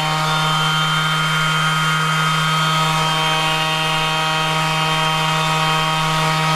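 Bosch GEX 18V-125 brushless 18-volt cordless random orbit sander running unloaded, with no sanding disc fitted yet, at a steady speed: an even, nice and quiet motor hum with a whir over it.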